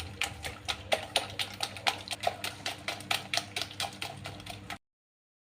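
Kitchen knife chopping quickly on a cutting board: a run of sharp knocks, about four a second, that cuts off suddenly near the end.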